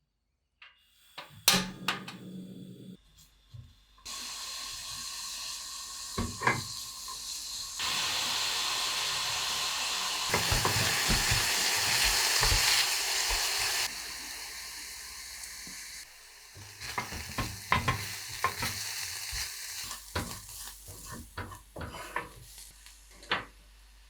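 Chopped onion sizzling as it fries in a pan, stirred with a utensil that clicks and scrapes against the pan. A couple of knocks come first, the sizzle starts about four seconds in, is loudest in the middle and quietens later, with more frequent stirring scrapes near the end.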